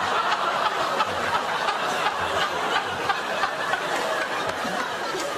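Studio audience laughing hard and without a break after a joke, mixed with a man's own laughter.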